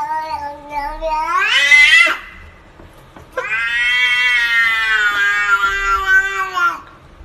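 Domestic cat giving two long, drawn-out meows. The first climbs in pitch over about two seconds. After a short pause, the second is longer, holds steady, and drops at the end.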